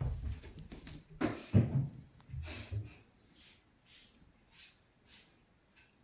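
Thumps and rustling of cats moving about in a box and basket, a burst of knocks in the first three seconds, then a few faint light rustles.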